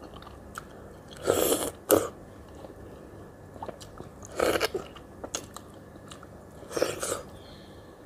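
Ripe mango being bitten and chewed close to the microphone: about four wet bites into the soft flesh, with quieter mouth and chewing sounds between.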